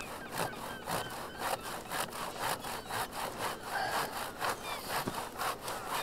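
Handsaw cutting through a log on a sawhorse, steady back-and-forth rasping strokes about two a second.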